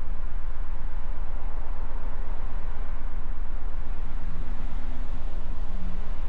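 A steady low rumble with a faint hiss above it, unchanging in level.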